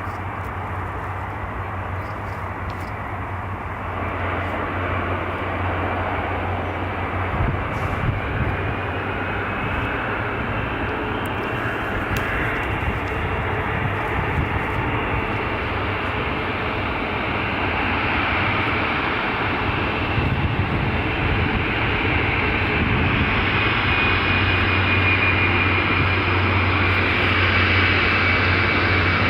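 Boeing 747 jet engines running, a steady dense noise that grows gradually louder, with a high whine coming in during the second half.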